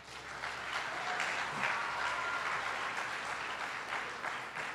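Audience applauding, the clapping building over the first second or two, holding steady, then thinning out near the end.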